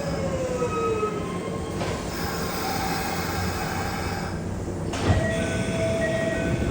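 Kintetsu electric train running on the track, with motor whine tones, one falling in pitch in the first second, over wheel-and-rail rumble. A clank comes about two seconds in and a louder one about five seconds in.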